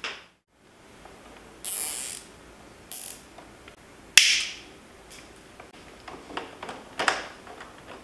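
Plastic clicks, scrapes and rustles as a TST Industries Mech-GTR LED front turn signal is fitted back onto a Yamaha MT-07's mount by hand, with a sharp click about four seconds in and a run of small clicks after it.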